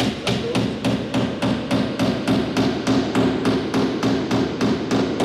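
Hammer driving a nail into timber skirting moulding: rapid, even blows, about four a second.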